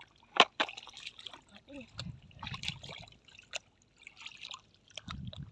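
Shallow water splashing and trickling in short, irregular bursts, with a sharp slap about half a second in.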